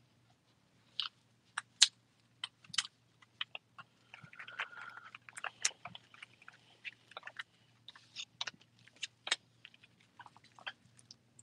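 Plastic card packaging crinkling and crackling as a trading-card hobby box is opened, with a run of sharp clicks and a longer tearing crinkle about four seconds in.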